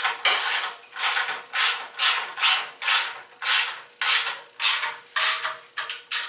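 Socket ratchet wrench tightening nuts onto carriage bolts, its pawl clicking in a short burst on each back-swing, about two strokes a second.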